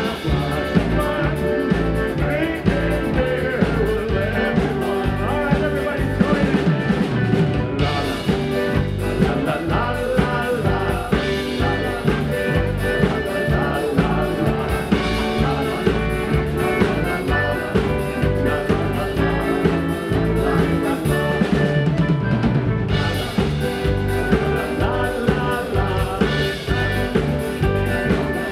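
Live polka band playing: piano accordion over a drum kit keeping a steady beat, with electric guitar and keyboard.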